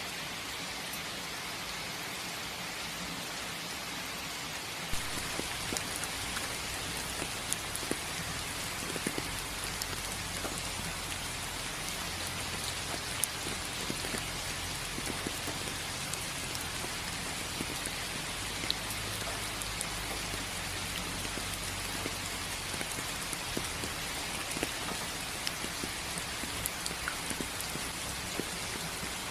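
Steady rain, with individual raindrops striking a surface; from about five seconds in, the separate drop hits become louder and more distinct.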